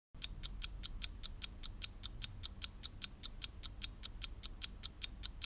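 Fast, even ticking: faint sharp clicks at about six a second.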